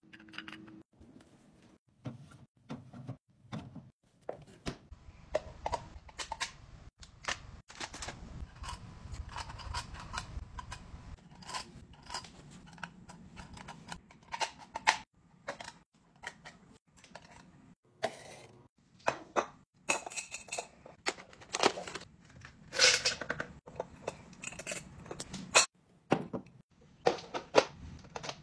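Hands handling glass jars and clear plastic storage containers on a counter: screw caps twisting and lids clicking on and off, and containers being set down, in an irregular run of clicks, taps and knocks. A few louder knocks come about two-thirds of the way in.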